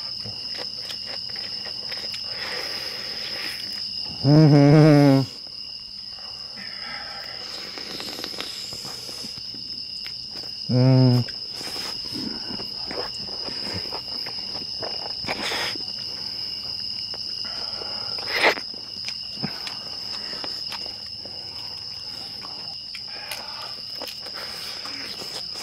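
Night insects chirping in a steady high drone. A man's voice gives a loud, wavering hum twice, about four and about eleven seconds in, with a few faint clicks later.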